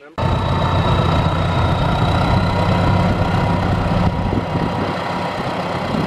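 A John Deere utility tractor's diesel engine running steadily while it pulls a trailer loaded with cranberry vines. It cuts in suddenly just after the start, a low steady hum with a thin steady whine above it.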